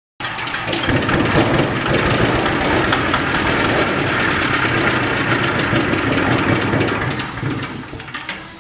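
Small single-cylinder diesel engine driving a corn sheller, running loudly and steadily just after being started, with a dense knocking beat; the sound eases off near the end.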